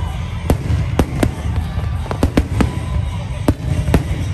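Aerial fireworks going off in quick, irregular succession: a dozen or so sharp bangs and crackling pops over a steady low rumble.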